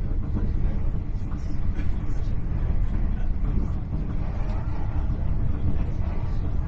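Steady low rumble inside the passenger saloon of a Hitachi Class 800 intercity train running along the line.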